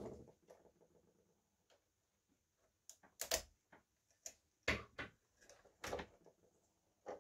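Scattered sharp clicks and light knocks of gloved hands handling plastic parts, hoses and wiring inside an opened coffee machine. About half a dozen, mostly in the second half, with quiet between them.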